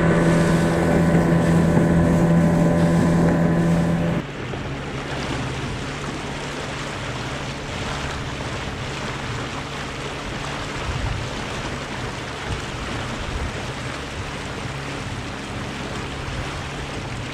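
Small outboard motor pushing an inflatable dinghy, running steadily with a loud drone. About four seconds in the level drops abruptly, and the motor goes on more quietly under the hiss of water wash along the hull.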